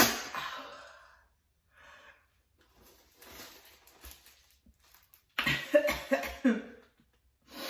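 A woman's voice making non-word sounds: a sharp cough-like burst at the start, then short excited bursts of laughter about five and a half seconds in.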